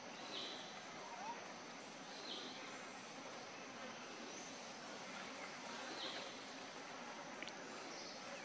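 Steady outdoor insect drone with a few short, high chirps every couple of seconds.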